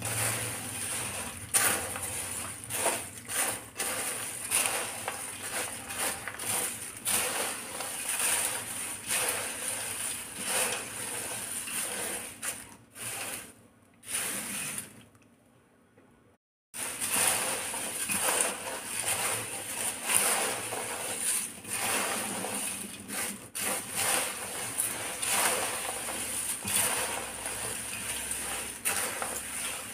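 Hands tossing and mixing dry chivda (beaten rice flakes, fried corn flakes and peanuts) in a steel bowl. The crisp rustling and crunching carries small clicks and clinks against the steel. It breaks off for a second or two a little past halfway.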